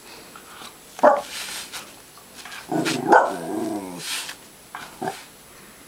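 Jack Russell terrier barking during play: a sharp bark about a second in, a longer drawn-out bark with falling pitch around three seconds in, and a short bark near the end.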